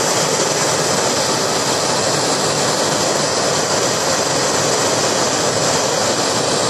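Handheld gas torch burning with a steady, loud hiss as its flame heats the nail of a dab rig until it glows.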